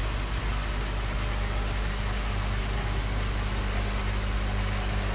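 Steady machine hum under an even hiss.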